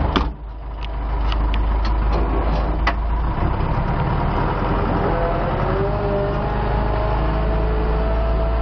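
Vehicle engine running steadily with a deep rumble, with a few light clicks in the first three seconds; from about five seconds in, a whine rises in pitch and then holds.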